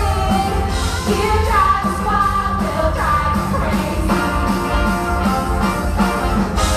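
A large group of voices singing together over upbeat rock-and-roll music with a steady beat.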